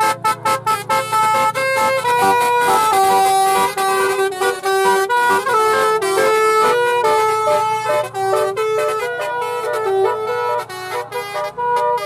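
Basuri-type telolet musical air horn on a bus playing a fast tune of stepped notes, quick short toots about the first second, then longer held notes.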